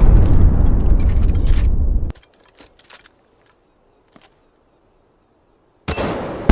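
A loud explosion-like blast with a deep rumble cuts off abruptly about two seconds in. Near silence with a few faint clicks follows, then another blast starts near the end.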